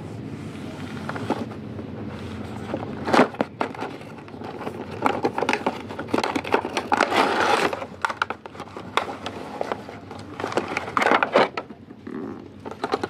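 A cardboard toy box being handled and opened, with scraping, tapping and crinkling of plastic wrap as the toy is slid out; a sharp snap about 3 s in.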